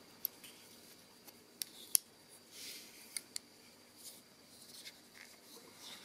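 Faint clicks and small metal sounds from the folding tools of a Victorinox WorkChamp Swiss Army knife as they are worked by hand, a handful of sharp clicks with the loudest about two seconds in, and a brief soft rubbing near the middle.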